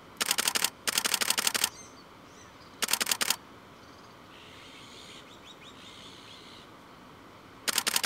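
DSLR shutter firing in continuous-burst mode: three bursts of rapid clicks in the first three and a half seconds, and another burst starting near the end.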